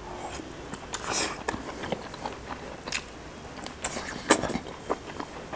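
A man biting into a roasted chicken leg piece and chewing it, with irregular wet clicks and smacks of the mouth.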